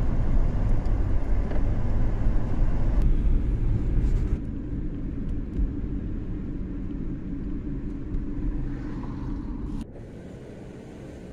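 Steady low rumble of a car on the road. It eases a little partway through and drops abruptly to a quieter hum near the end.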